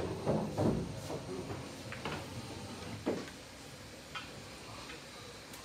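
Pool balls clicking: several short, sharp clacks of balls striking one another on the table, spaced about a second apart, with a duller knock about three seconds in.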